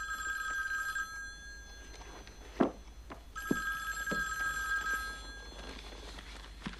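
A telephone ringing in repeated rings with pauses between: one ring cuts off about a second in, and the next rings from about three and a half to five seconds in. A single sharp knock sounds between the two rings.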